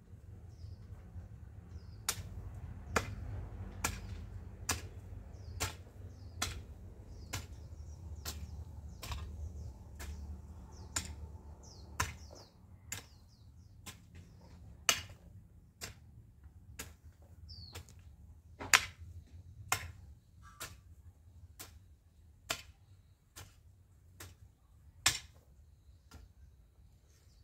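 A hand hoe chopping into soil, one sharp strike roughly every second, with the strikes stopping near the end.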